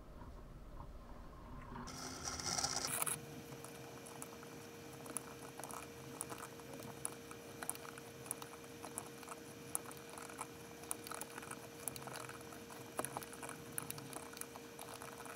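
Hand thread-cutting with a two-handled tap wrench on a cast-iron drill press vise: many small irregular clicks and scrapes of metal on metal as the wrench is worked, with a louder rasping stretch about two seconds in. A steady faint hum runs underneath from about three seconds in.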